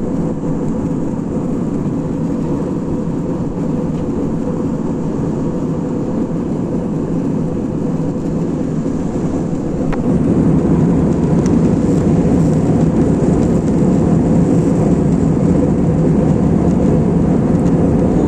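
Aeroplane cabin noise in flight: a steady engine and airflow drone that steps up a little louder about ten seconds in.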